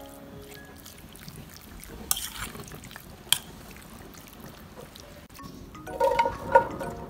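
Raw chicken pieces being stirred through thick gochujang sauce in a stainless steel bowl: wet squelching, and one sharp clink of the utensil against the bowl about three seconds in. Chime-like music notes sound at the start and again, louder, near the end.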